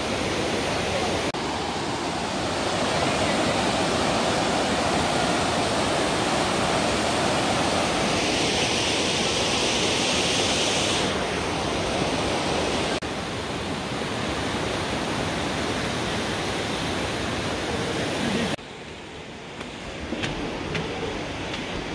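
Steady rushing hiss of falling rain, with no clear single events. It changes abruptly in level several times and drops noticeably near the end.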